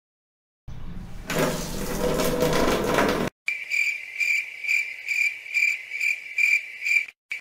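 Cricket chirping: a high, clear trill that pulses about twice a second for several seconds. Before it comes a few seconds of loud rushing noise.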